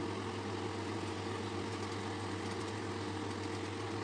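Steady hum of an electric motor running, a low droning tone with a fainter higher tone above it, like a kitchen fan.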